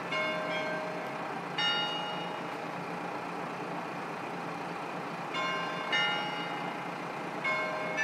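Clear metallic chimes ringing in small clusters of two or three strikes, with gaps of a few seconds between clusters, over the steady low engine noise of a KiHa 54 diesel railcar.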